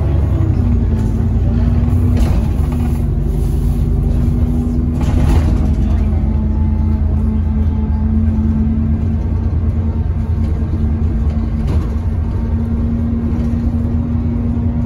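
Cabin sound of an Alexander Dennis Enviro400 double-decker bus on the move: steady engine and road rumble with a constant hum running under it, its pitch dropping slightly a few times as the bus eases its speed.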